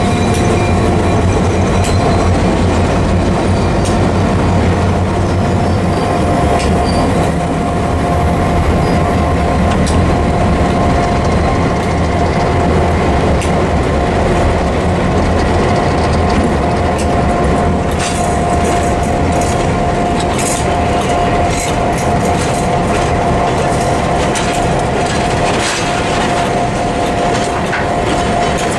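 Diesel-hauled passenger train passing close by at low speed: the locomotives' engines pass in the first half, then the steel coaches' wheels click over rail joints in the second half. A steady wheel squeal sounds over it throughout.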